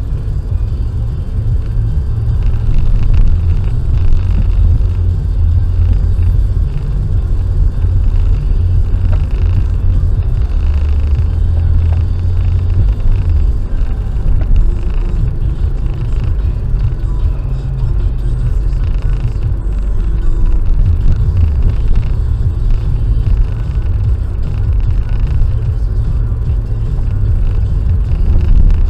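Steady low rumble of a car driving along a motorway: engine and tyre noise.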